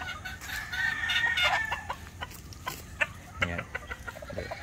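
Gamefowl chickens clucking in a pen, with a rooster crowing for about a second and a half near the start.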